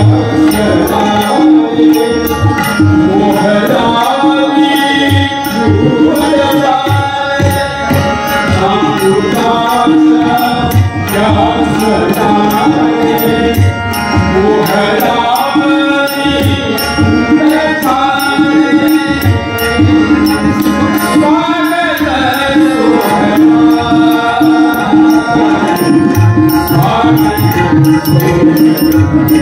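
Live Indian ensemble of tabla, harmonium and small brass hand cymbals playing a song steadily: regular tabla strokes under a sustained harmonium melody.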